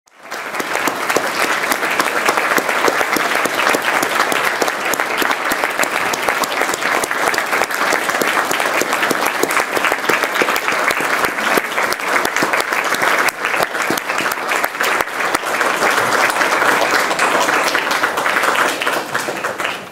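Large standing audience applauding, a dense mass of many hand claps kept up steadily; it dies away near the end.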